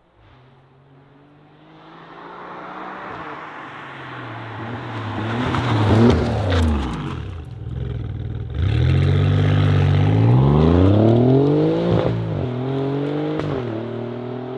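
Alfa Romeo Giulia Quadrifoglio's twin-turbo V6 through a Pogea Racing exhaust. The car approaches and passes about six seconds in, then pulls away under hard acceleration, its pitch climbing and dropping back at two upshifts near the end.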